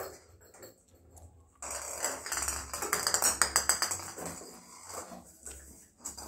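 Lhasa Apso puppy scrabbling after a ball on a marble floor: after a quiet moment, a quick run of claw clicks, scuffs and light knocks that lasts a couple of seconds, then fades.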